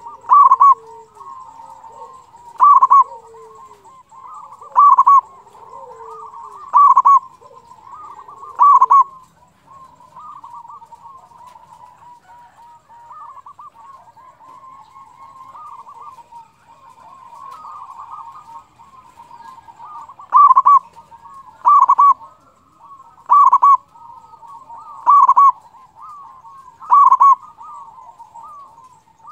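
Local zebra dove (perkutut) cooing: loud calls about every two seconds, five of them, then a stretch of about eleven seconds of softer rolling coos, then another run of six loud calls near the end.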